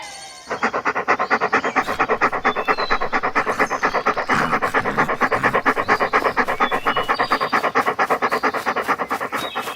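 Rapid, even panting, about six short breaths a second, starting about half a second in.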